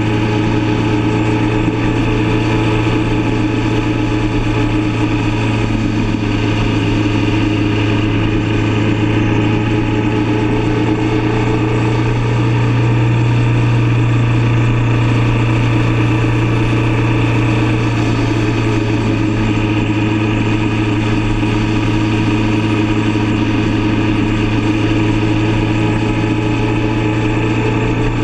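Motorcycle engine running at a steady cruise, a loud, even low drone that swells slightly about halfway through.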